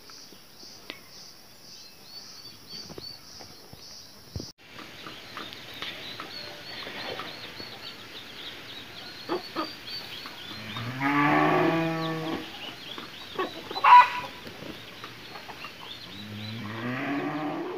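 A cow mooing twice, each a long low call of about two seconds, the second starting near the end, over light high chirping. A single sharp click falls between the two calls.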